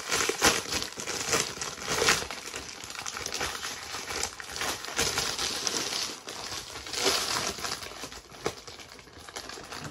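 Packaging of a trading-card starter pack being crinkled and pulled open by hand: a continuous crackling rustle with many small sharp clicks.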